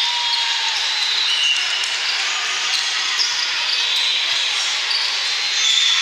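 Steady din of a large sports hall with many volleyball courts in play: crowd noise mixed with short high squeaks and a few sharp ball bounces.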